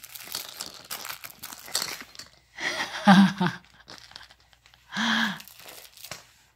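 Crinkle ears of a plush toy mouse crackling as a baby grabs and squeezes them. Two short vocal sounds come through, about three seconds in and about five seconds in, the first the loudest.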